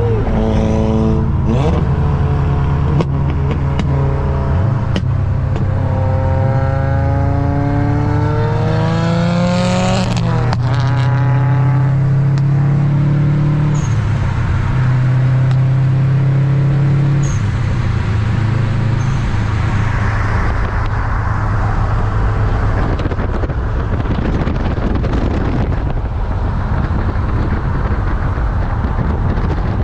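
Subaru WRX's turbocharged flat-four under acceleration: about six seconds in, the engine note climbs for some four seconds, drops at a gear change, then pulls steadily. In the last third the engine sinks under a rushing road and wind noise.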